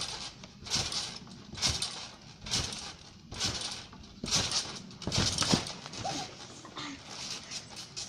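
Someone bouncing on a garden trampoline in a steady rhythm, about one bounce a second: each landing is a thump of the mat with a hiss from the springs and net.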